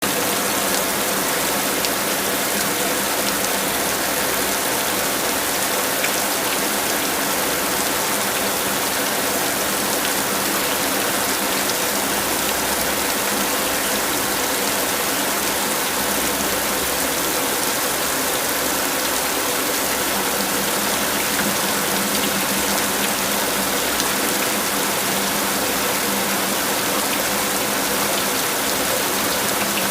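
Steady rain falling, a constant even hiss with many small drop ticks.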